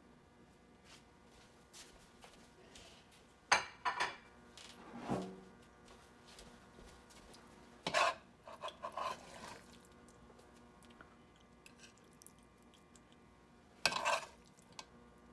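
A metal spatula scraping and clinking against a frying pan and a plate as stir-fried beef is served onto rice. The clatter comes in a few short bursts, about 3.5 s, 8 s and 14 s in, with quiet between them.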